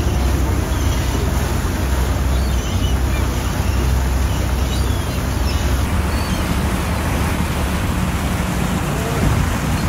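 Sightseeing boat's engine running with a steady low hum under a loud rush of wind and sea water.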